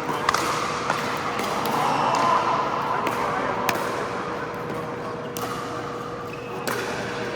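Pickleball paddles hitting the plastic ball on an indoor court: about seven sharp pops at uneven spacing, over a steady background din and a constant hum.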